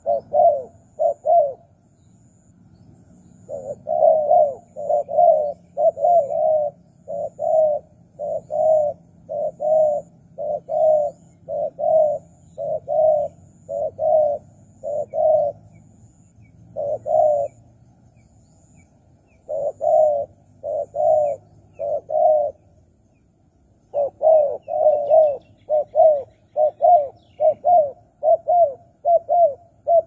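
Spotted dove cooing: long runs of short, evenly repeated coos, about one and a half a second, broken by a few short pauses. A faint high ticking runs under the first half.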